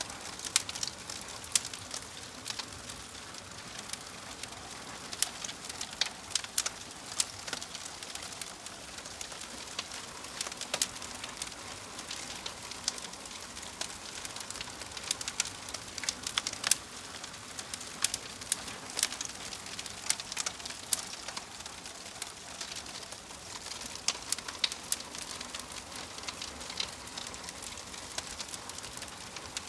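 Logs burning in a fireplace, crackling with frequent sharp, irregular pops over a steady hiss.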